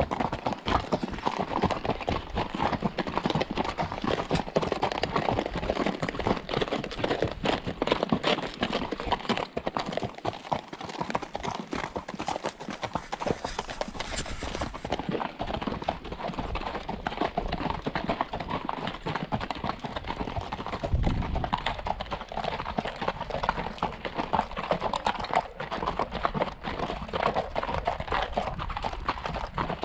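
Horse hooves clopping at a walk, a continuous run of hoofbeats and knocks.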